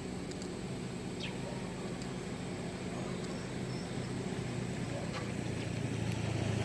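Engine hum of a passing road vehicle, steady and growing louder near the end, with a few faint bird chirps.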